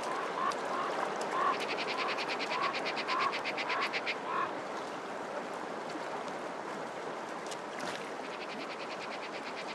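Magpie chattering in a rapid dry rattle, with short calls repeating about twice a second, over a steady wash of flowing river water. The bird calls stop about four and a half seconds in, leaving only the water.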